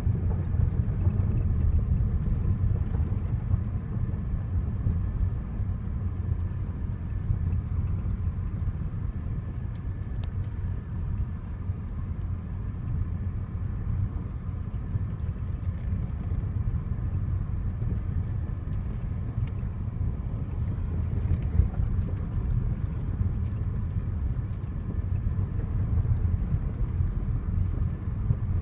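Car driving slowly over a gravel and dirt track, heard from inside the cabin: a steady low rumble of engine and tyres, with scattered small clicks and rattles that come thicker near the middle and toward the end.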